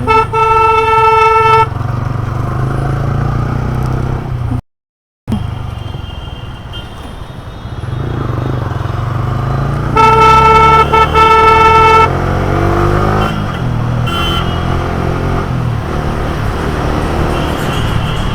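Vehicle horns honking in road traffic: a long blast at the start and another about ten seconds in, the second broken by a couple of quick gaps, over a steady low rumble of engines and road noise.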